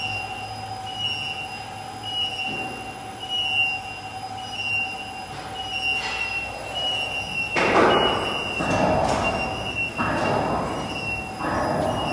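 Welding turntable drive running with a steady whine and a high tone that pulses about twice a second. From about halfway in, several loud bursts of hissing noise, each lasting about a second.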